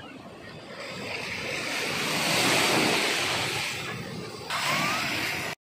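Ocean surf washing in over a sandy beach, the rush of foaming water swelling to its loudest midway, easing off, then surging again with the next wave. The sound cuts out for a moment just before the end.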